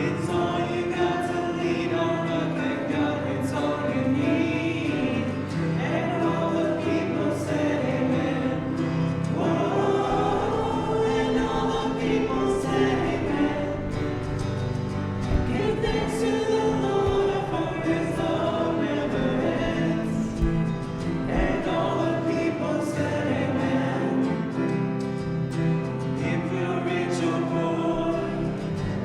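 A congregation singing a hymn together, with musical accompaniment.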